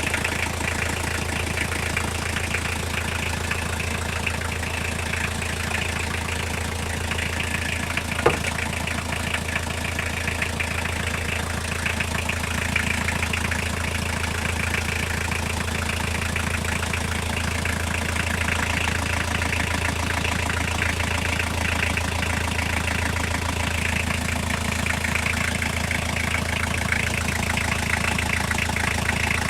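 Toyota diesel engine idling steadily with a rhythmic knock whose cause the owner cannot pin down. A single sharp click about eight seconds in.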